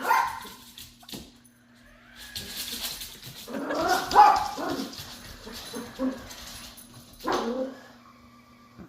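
Dog barking and whining at a robot vacuum: a short bark at the start, a drawn-out whining call through the middle, then two more short barks. The robot vacuum's steady low hum runs underneath.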